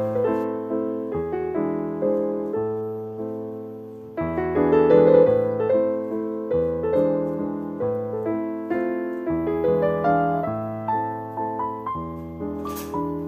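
Background piano music: a slow melody of single notes and chords, each note struck and fading, swelling louder about four seconds in.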